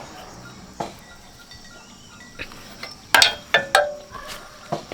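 Sharp metallic clinks and knocks of tools and parts being handled, scattered at first, then a quick cluster about three seconds in, some ringing briefly.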